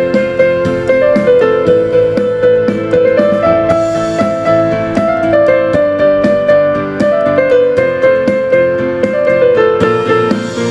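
Yamaha PSR-E373 portable keyboard played with both hands: a melody of held notes moving step by step over changing chords.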